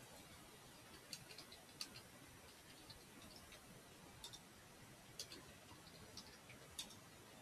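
Faint computer keyboard keystrokes: scattered clicks in short runs of key presses as commands are typed, over near-silent room tone.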